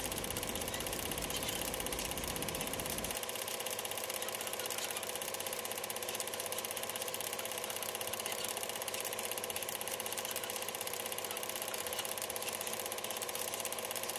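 Film projector running: a steady, fast mechanical clatter. A low rumble underneath drops away about three seconds in.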